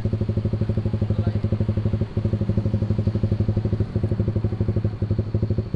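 Honda Sonic 150R's single-cylinder four-stroke engine idling through an aftermarket WRX GP5 MP1 exhaust, a steady, even beat of about eleven pulses a second with a few brief dips.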